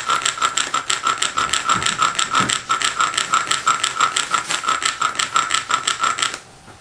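Bow drill at work: a wooden spindle spun back and forth by the bow's cord, grinding in the hearth board's socket with a high squeal that pulses in a fast, even rhythm with each bow stroke. It is friction fire-lighting, rubbing the board to make charred dust for an ember. The drilling stops abruptly near the end.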